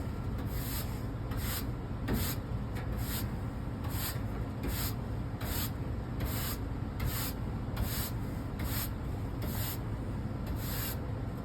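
Repeated scraping strokes of a hand tool drawn across the thin aluminium fins of an air-conditioner condenser coil, about two strokes a second, as the coil's bent, puckered fins are worked over by hand.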